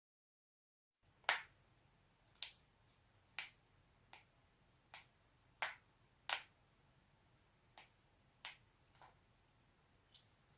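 Human joints being cracked: about ten sharp, separate pops, starting about a second in, spaced unevenly half a second to a second and a half apart, the first and second the loudest.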